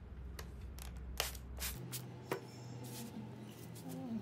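Light handling noise around a clock's glass cover being polished and then wiped with a cloth. A handful of sharp clicks fall in the first two seconds or so, followed by soft rubbing.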